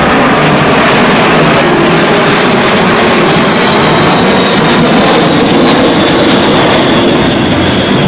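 Formation of L-39 Albatros jet trainers flying past: a very loud, steady jet rush from their turbofans, with a high whine that slowly falls in pitch as they go by.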